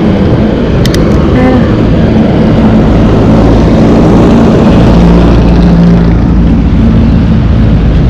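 Jeepney engine running close by as it crosses the road, loudest about halfway through.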